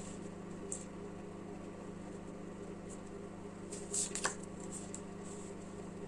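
Tarot cards being handled: a brief rustle and a couple of light clicks about four seconds in, over a steady low hum.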